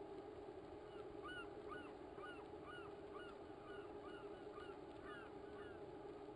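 A bird calling over and over: about a dozen short honk-like notes, each rising and then dropping in pitch, about two a second, starting about a second in and stopping near the end. Underneath is a faint steady background hum.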